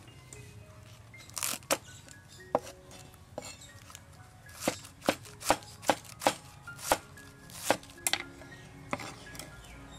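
Cleaver chopping cabbage on a wooden cutting board: sharp knocks, a few scattered at first, then a quicker run of about two or three a second in the middle.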